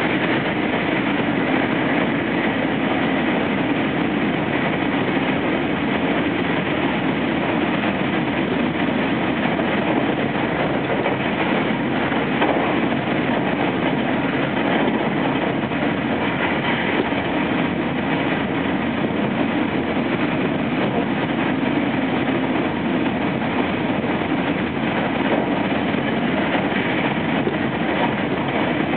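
JR West 225 series electric train with Toshiba traction equipment, heard from inside the passenger car while running at speed: a steady rumble of wheels on rail and running gear, with no changes in pace.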